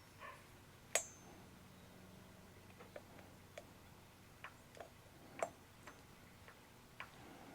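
Scattered light clicks and taps of small metal parts and tools being handled on a workbench during reassembly of a power drawbar. The sharpest click comes about a second in, with another near the middle and one near the end.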